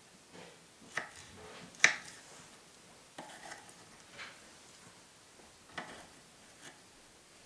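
Kitchen knife cutting mango slices into small pieces on a wooden cutting board: irregularly spaced sharp taps of the blade meeting the board, about seven in all, the loudest a little under two seconds in.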